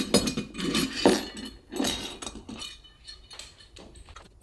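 A glass measuring cup clinking against the neck of a glass hummingbird-feeder bottle while sugar water is poured in. There are several clinks in the first two and a half seconds, then only faint ticks.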